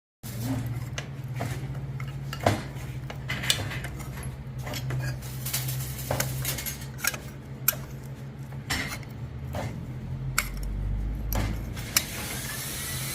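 Irregular metallic clinks and knocks, about ten spread over several seconds, from metal tools and stock being handled in a blacksmith's workshop, over a steady low hum that gives way to a deeper rumble near the end.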